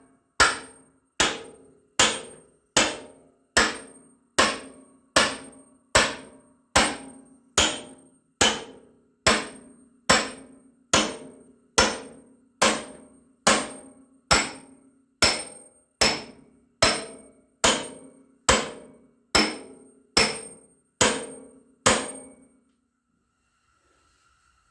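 Hammer blows on steel splitting wedges driven in to split the Allis-Chalmers WD45 tractor: a steady, even series of about 28 metallic strikes, one every 0.8 seconds or so, each ringing briefly. The hammering stops about two seconds before the end.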